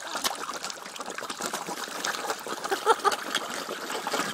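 A packed shoal of carp gulping and slurping at the water's surface: a busy, continuous crackle of wet pops, sucks and small splashes, with short plopping gulps coming thicker in the second half.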